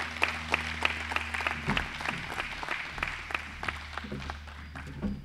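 Audience applauding, a patter of many hand claps that thins out toward the end.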